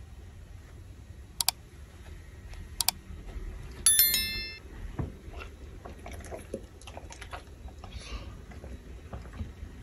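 Two quick double mouse clicks, then a short bell chime: the sound effect of a like-and-subscribe button overlay, with the chime as the loudest part. Faint low room rumble and small scattered sounds underneath.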